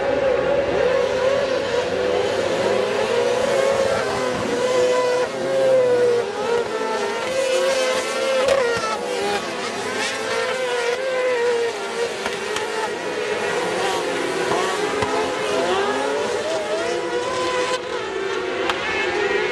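Several motor engines running and revving, their pitch rising and falling.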